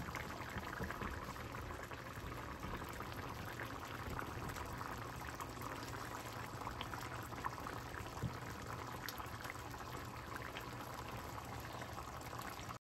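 Drumstick and shrimp curry (kuzhambu) simmering in the pot: a steady bubbling with scattered small pops, cutting off suddenly near the end.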